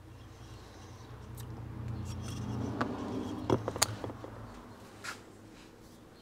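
Handling noise on a workbench: a low rumble as a cast aluminium brake hub plate and small zinc-plated parts are moved and set down. A few sharp clicks of metal on metal come a little past halfway, the loudest part.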